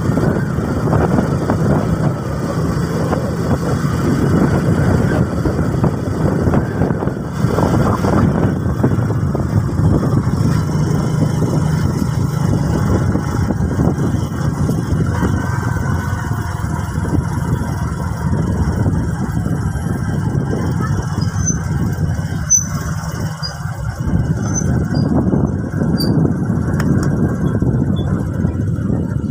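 Motorcycle riding along a road: its engine running steadily under heavy wind rush over the microphone.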